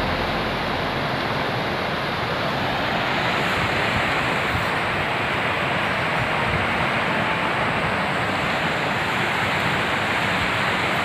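River water rushing over stones and boulders in a rocky riverbed, a steady, even rush.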